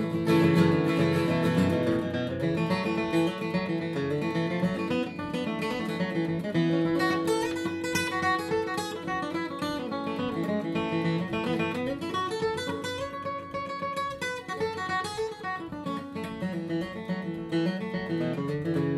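Bourgeois Vintage D dreadnought acoustic guitar playing an instrumental break of a country-folk song, a busy picked melody over strummed chords, with no singing.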